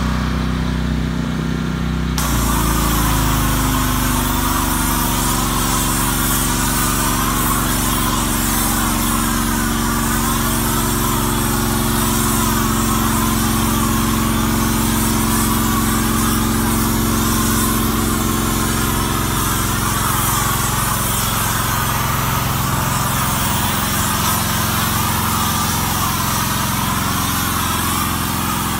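Small gasoline engine of a pressure washer running steadily under load, its note dipping briefly about two seconds in as the high-pressure spray starts. From then on the water jet hisses against the truck's cab and engine bay.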